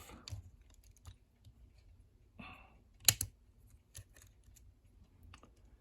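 Small metal parts of a lever padlock being handled during disassembly: scattered light clicks, a short scrape about two and a half seconds in, and one sharp click just after three seconds.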